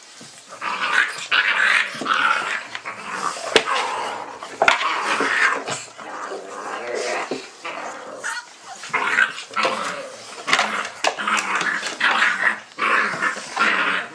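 A litter of Dogo Argentino puppies vocalising over and over in short bursts of yelps and growls, with a few sharp knocks among them.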